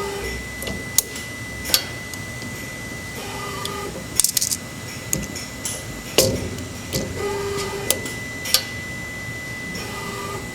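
Automatic part loader and turnaround station on an OmniTurn CNC lathe cycling: a series of sharp mechanical clacks as the mechanism moves and grips, with short motor whines between them, over a thin steady high tone.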